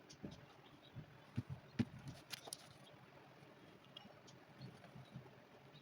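Faint, scattered clicks and soft knocks, with a quick cluster of them about one and a half to two and a half seconds in.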